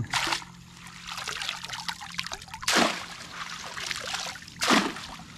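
Water trickling and dripping in a shallow pool as a cast net is handled, with three short splashes: one at the start, one a little past halfway and one near the end.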